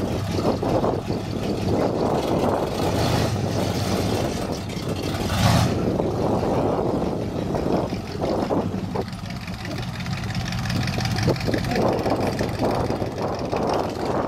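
Engine of a Holden HX ute converted into a tractor truck, running steadily with a low hum, with one brief louder burst about five seconds in.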